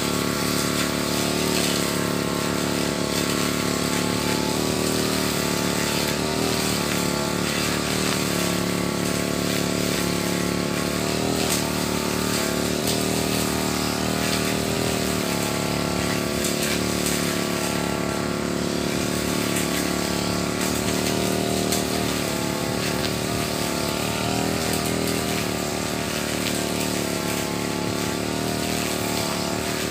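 Petrol brush cutter running steadily at working speed as it cuts thick grass, its engine note wavering slightly in pitch as the cutter is swung.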